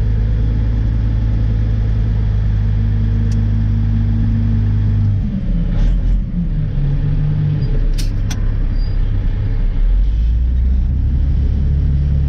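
Dump truck's diesel engine running, heard from inside the cab. Its note drops about five seconds in and settles into a deeper hum about ten seconds in, with two sharp clicks a little before that.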